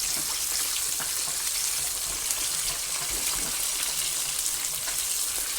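Chicken wings sizzling steadily in hot oil during their second fry, a dense hiss with light crackling.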